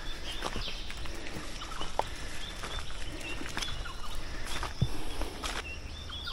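Footsteps on a wet, slippery forest track, irregular steps and scuffs, with short bird chirps repeating in the background.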